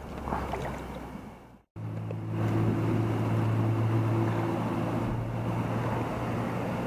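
Steady rush of river water with a low, steady hum under it, after a short break in the audio about two seconds in.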